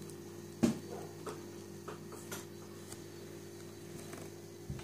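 Scattered light ticks and taps of fingers and a plastic seedling tray as succulent cuttings are pressed into potting soil, with one sharper click just over half a second in, over a steady low hum.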